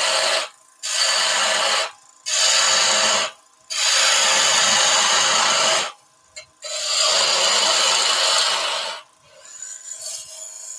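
Bowl gouge cutting a spinning wooden spindle on a lathe, roughing off waste from a tool handle. The cut comes in about five passes of a second or two each with brief pauses between, the last one fainter.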